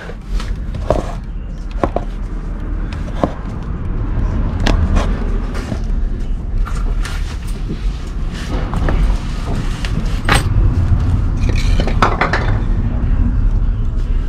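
Handling noise: a steady low rumble with scattered knocks and clicks as a camera is carried and set down on a concrete floor and someone moves about under a car.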